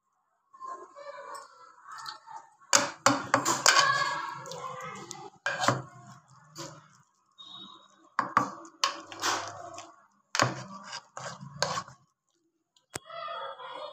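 Metal potato masher mashing boiled potatoes and peas in an aluminium pressure-cooker pot, with irregular knocks and scrapes of the masher against the pot.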